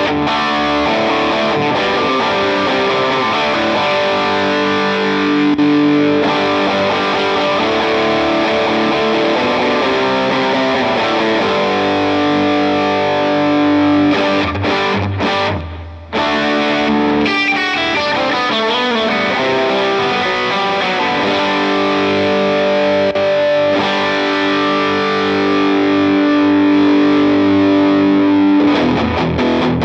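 Electric guitar playing chords that ring out, overdriven through the NUX Ace of Tone dual overdrive pedal into a Matchless DC-30-style amp preset, with a lot of gain. The sound briefly drops away about 16 seconds in, then the playing resumes.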